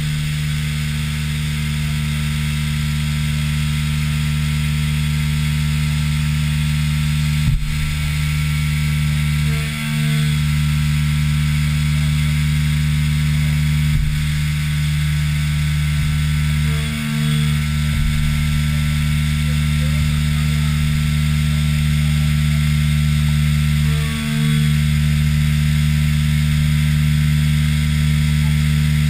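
Haas VF-3SS CNC vertical mill milling an aluminum rail: the spindle and cutter run with a steady low hum under the hiss of flood coolant. The sound dips briefly three times, about seven seconds apart, and there is one short click a little past seven seconds in.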